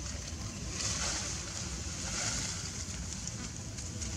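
Wind buffeting the microphone as a steady, fluttering rumble, with a hiss that swells about a second in and fades after a couple of seconds.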